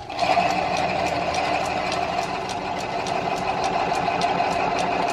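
Metal lathe running while its cutting tool shaves a spinning white oak workpiece: a steady cutting noise over the machine's hum, beginning right at the start, with light regular ticking about four times a second.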